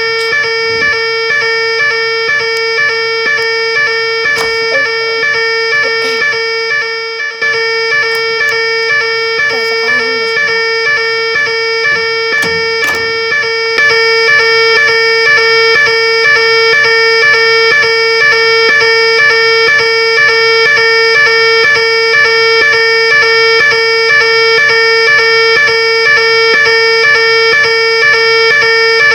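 Fire alarm sounding continuously: a loud, steady electronic tone that rings without a break and gets louder about halfway through.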